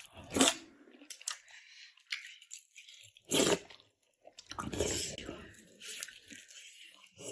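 Close-up eating sounds: a few separate sips of thick hulatang soup from a spoon, then biting into and chewing a rou jia mo, a flatbread bun filled with spicy beef.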